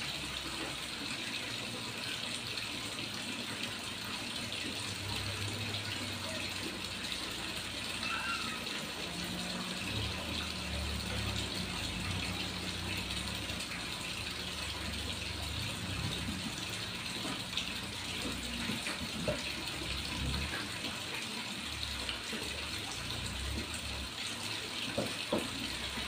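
Steady hissing background noise, with a low rumble that comes and goes from about five seconds in, and a few faint knocks near the end.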